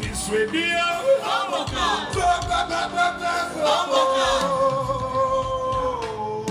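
A man singing with music behind him, ending on one long held note from about four seconds in that drops slightly near the end.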